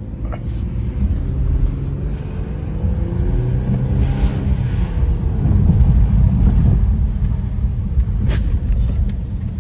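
Infiniti Q50 under way, its engine note rising steadily over the first few seconds as it accelerates, over a constant low rumble of engine and road.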